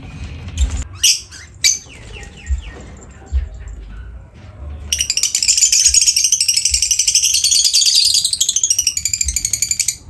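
Lovebirds calling: a few sharp, shrill calls about a second in. From about halfway there is loud, continuous, high-pitched chattering with a rapid flutter, which stops abruptly near the end.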